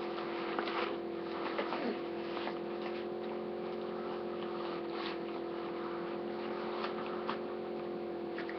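A steady hum held at a few fixed pitches, with a few faint clicks and rustles of things being handled.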